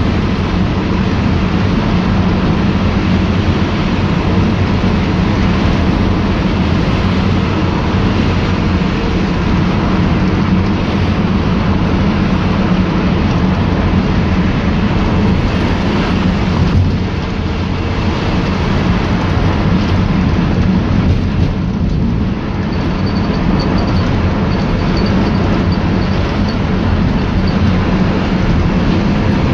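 VW Transporter T5 minibus running on the road, its engine and road noise making a steady low hum that dips briefly twice. A faint high tone sounds in the second half.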